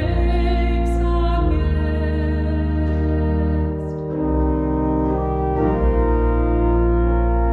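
Pipe organ playing sustained chords alone in the interlude between two verses of a sung anthem, the harmony changing about a second and a half in, near the middle and again a little later, with a short drop in loudness around the middle.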